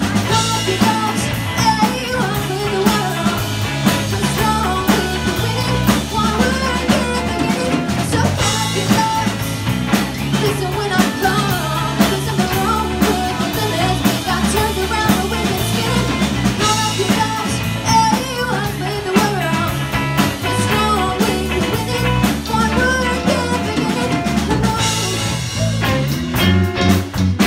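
Small rock band playing live: electric guitars over a drum kit with a steady beat, with a wavering lead melody on top.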